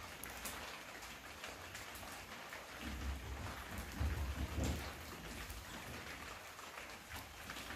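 Faint clicking and scraping of metal knitting needles and rustle of wool yarn over a steady hiss, with a few low bumps between about three and five seconds in.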